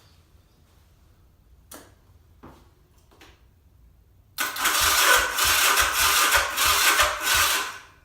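1979 Yamaha XS400's electric starter cranking the engine for about three and a half seconds, pulsing about three times a second, then stopping without the engine catching: it won't start. A few faint clicks come before the cranking.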